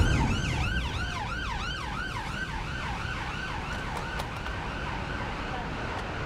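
Emergency vehicle siren in a fast rising-and-falling yelp, about three cycles a second, fading away over a few seconds over a steady low traffic rumble.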